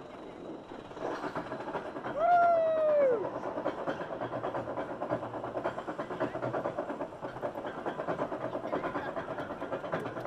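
Arrow mine train's lift-hill chain and anti-rollback dogs clattering rapidly and steadily as the train climbs. About two seconds in, one high whoop from a rider falls in pitch at its end.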